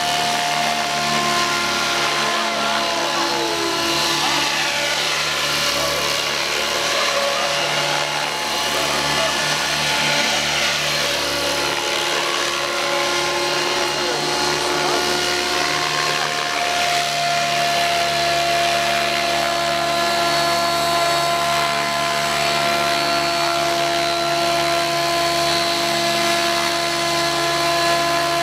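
Radio-controlled scale helicopters flying: a steady, many-toned mechanical whine from the model's drive and spinning rotor blades.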